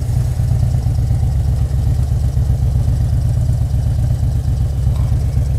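Harley-Davidson touring motorcycle's V-twin engine running at low speed, a steady low pulsing sound.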